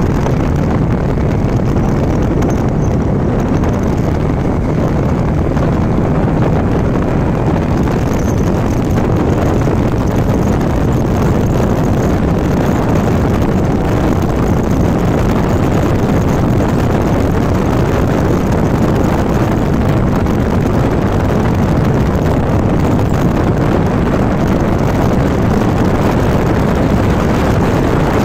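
Bajaj Dominar 400 motorcycle riding at highway speed, around 100 km/h: a steady, loud rush of wind over the microphone mixed with the engine's drone.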